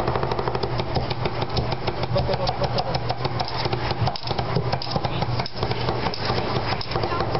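Cleavers chopping sisig on a wooden chopping board in a fast, steady rhythm of sharp knocks, many strikes a second, over a steady low hum.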